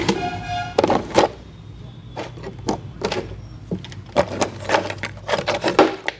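A string of sharp, irregular hand slaps and taps on skin during a barber's head and body massage, coming thick and fast in the last two seconds. A short pitched tone sounds at the very start.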